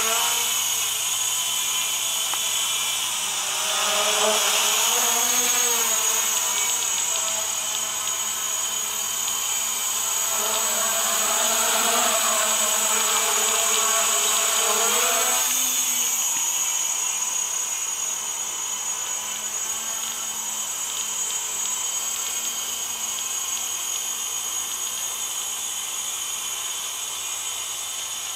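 Homebuilt quadcopter's motors and propellers whirring in flight, with a steady high whine over a lower pitch that wavers up and down as the throttle changes. It is louder in stretches during the first half, then settles to a steadier, slightly quieter hum.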